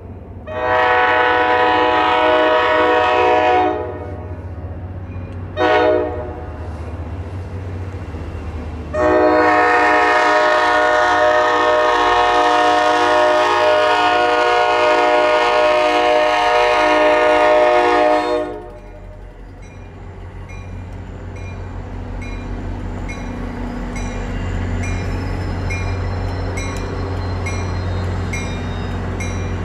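NJ Transit train's locomotive air horn sounding a long blast, a short one, then a very long one, the close of a grade-crossing signal. Afterwards the approaching train's low rumble grows louder.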